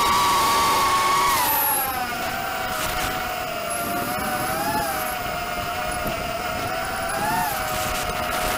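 Whine of a ZMR210 racing quadcopter's 2204/2300kv Black Widow brushless motors spinning 5030 tri-blade props, picked up by its onboard camera in flight. The whine drops in pitch about two seconds in, then rises briefly twice as the motors speed up.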